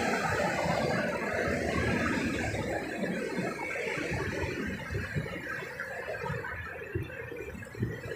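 Road traffic on a busy multi-lane expressway: a steady mixed rush of many engines and tyres, growing a little quieter toward the end.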